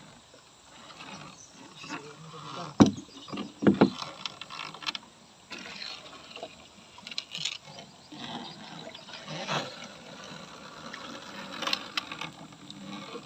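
Irregular knocks, clicks and scrapes of things being handled, loudest in a cluster of knocks about three to four seconds in.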